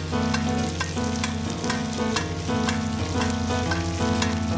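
Foaming butter sizzling and spitting around a steak in a cast iron skillet, with frequent small crackles as it is spooned over the meat to baste it. Background music plays underneath.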